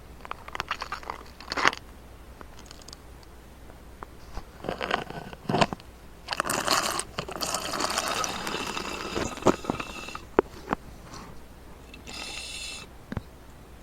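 Close-up drinking sounds: scattered clicks as a drinking container is handled, a few seconds of dense slurping and swallowing noise in the middle, and a brief pitched slurp near the end.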